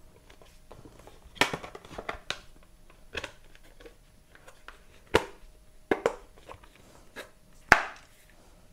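Sharp plastic clicks and taps, about eight, irregularly spaced, as an iPad mini is pressed into a clear plastic shell case and the case's folio cover is folded shut.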